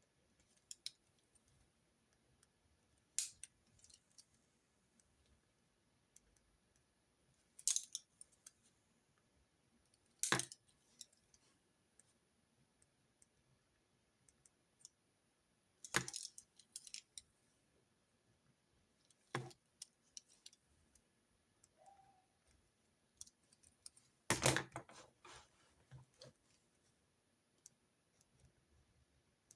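Scattered sharp clicks and taps of pens and stationery being handled on a desk during handwritten note-taking, about seven spread apart, the loudest a short rattling cluster late on.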